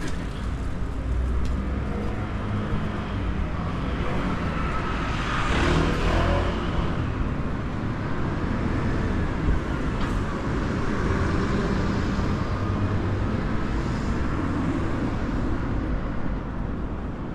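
Road traffic: cars passing on a city street, a continuous rumble that swells as one vehicle goes by about five to six seconds in.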